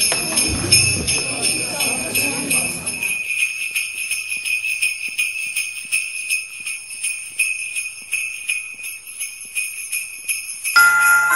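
Sleigh bells jingling in a steady, even rhythm. Room noise sits under them for the first three seconds and then cuts off. Near the end a tinkling melody of single notes begins over the bells.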